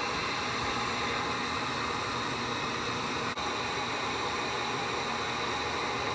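Handheld hot-air blower running steadily on high, a continuous rush of air aimed at built-up ice to defrost a refrigerator.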